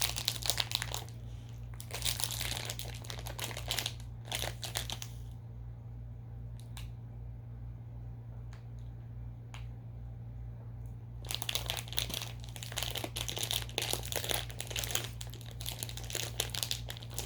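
Plastic candy packaging of a Push Pop Gummy Roll crinkling and crackling as it is worked at by hand, trying to get it open. It comes in two stretches, with a pause of several seconds in the middle where only a few clicks sound. A steady low hum runs underneath.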